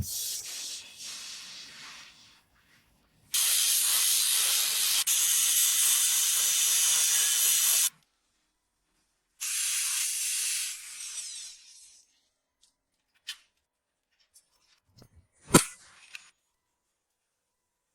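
Hissing spray in two long bursts, the first about four and a half seconds, the second shorter and tailing off, followed by a few light clicks and one sharp knock.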